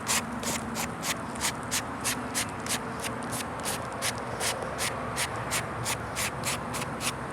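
Brushing debris off exposed roof decking under a lifted shingle row: steady back-and-forth sweeping strokes, about three a second.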